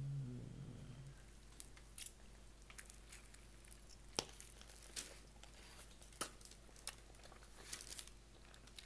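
Scattered sharp clicks and light crinkling and rustling as food, wrappers and utensils are handled.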